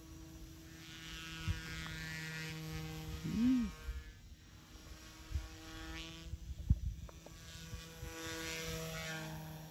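Electric RC helicopter flying at a distance: a steady whine from its motor and rotor blades that swells and fades several times as it moves about. About three and a half seconds in there is a short tone that rises and falls, and a few faint thumps.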